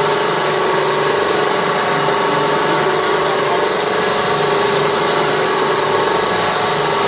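Ribbon mixer blender running, its ribbon agitator turning through granular powder in a steel trough. The drive gives a steady hum with a high whine over it and no change in speed.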